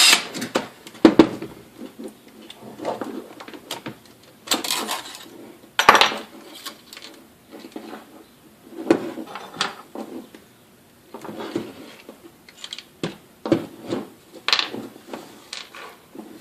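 Irregular clicks, clinks and knocks of hand work: screws, a driver and the stapler's plastic housing being handled and set down on a bench.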